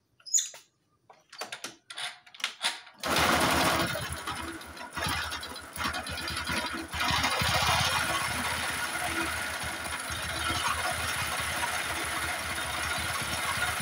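A Honda Supra X 125's single-cylinder four-stroke engine is turned over with a few strokes, catches about three seconds in, surges briefly and then runs steadily. It runs with a rough, harsh mechanical clatter, which the mechanic calls very rough ("sangat kasar"): a sign of a fault inside the engine.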